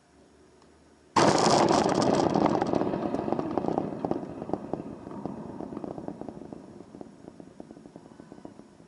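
A softball striking the chain-link backstop fence the camera is mounted on: a sudden loud crash about a second in, then the fence rattling and clicking as it dies away over several seconds.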